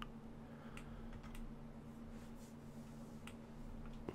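Faint, scattered clicks of computer keyboard keys, about one a second, over a low steady hum.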